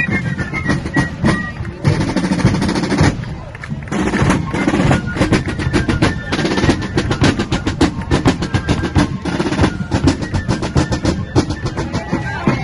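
Marching drums playing fast snare rolls and beats, with a few held high wind-instrument notes over them.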